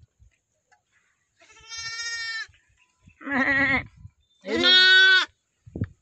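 Newborn lambs bleating three times in quick succession, calling for their mothers: the first call high and thin, the next two lower and quavering, and the third the loudest.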